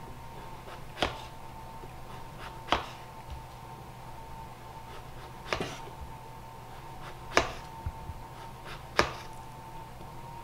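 Kitchen knife slicing straight down through pre-cooked butternut squash, each stroke ending in a sharp click as the blade meets the wooden spoon handles set alongside as guards. Five cuts, about one every two seconds.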